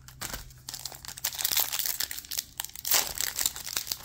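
Foil wrapper of a trading card pack crinkling and crackling as it is torn and peeled open by hand, getting louder about a second in.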